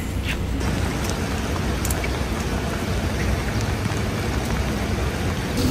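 Steady rain falling on wet paving, an even hiss with a few faint ticks of drops.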